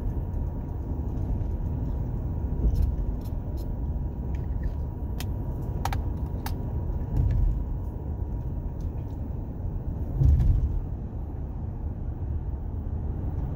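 Road and engine noise inside a moving car's cabin: a steady low rumble of tyres and engine at highway speed. There are three brief louder thumps, about 3, 7 and 10 seconds in, and a few light clicks.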